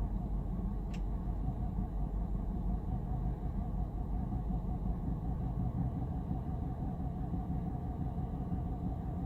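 2011 BMW 328i inline-six engine idling roughly just after a cold start, an uneven low rumble, with a single short click about a second in. The rough cold idle was traced to a faulty Valvetronic eccentric shaft sensor.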